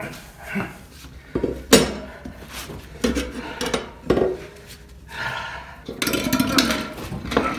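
Steel tire irons clinking, knocking and scraping against a motorcycle wheel rim while a foam mousse insert is levered into the tire, with a few sharp metallic knocks and a stretch of denser scraping and clatter near the end.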